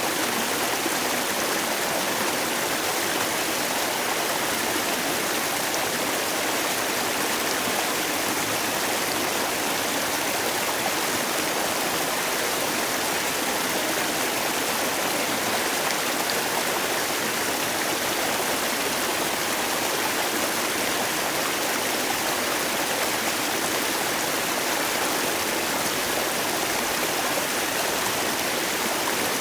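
Mountain valley stream rushing and splashing over rocks in a steady, unbroken flow of water noise.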